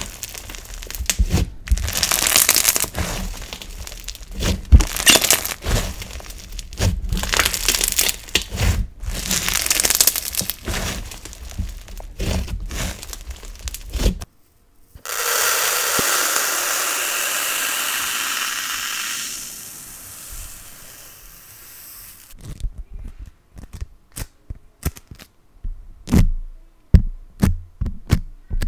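Bead-filled slime being kneaded and squeezed by hand, giving dense crackling and popping. About halfway through it turns into a steadier crackling hiss as the slime is stretched and pulled, fading off, and near the end sparse sharp clicks come as a bead-covered ball is pressed.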